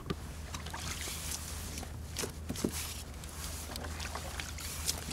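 Water lapping and sloshing against a sea fishing kayak's hull, over a steady low rumble, with scattered small knocks and clicks from handling on board.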